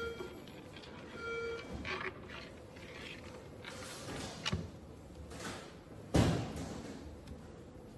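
Café background ambience with scattered clinks and knocks, and one loud knock about six seconds in.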